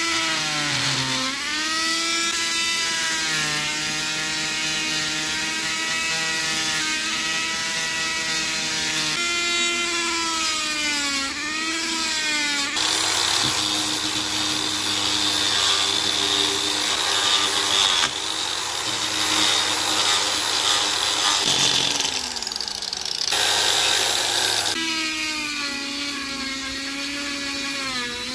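Rotary tool with a small sanding drum whining, its pitch sagging each time it bears on the steel knife blade. About halfway it gives way to an angle grinder with a foam polishing pad buffing the wooden handle, a lower and noisier running sound that briefly spins down and picks up again. Near the end the rotary tool whines again, sanding the wooden handle.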